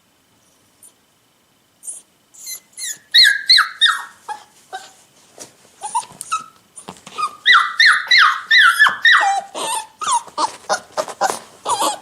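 Puppy crying: a quick run of short, high whimpers that each fall in pitch, starting about two seconds in and coming thicker and faster in the second half.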